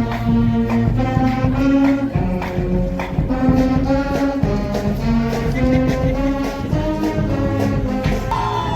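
Brass band music: sustained horn notes with drum beats, and a falling slide near the end.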